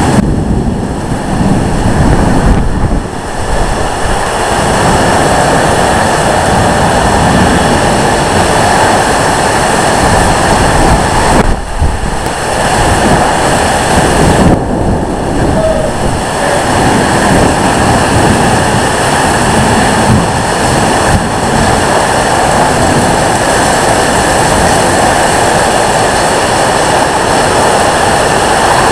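Microburst winds and torrential rain: a loud, steady roar of wind and downpour that eases for a moment a few times.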